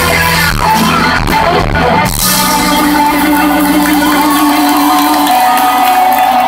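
Live rock band with electric guitars playing through an arena sound system. For about two seconds the full band plays with drums, then the drums stop and held notes ring on steadily.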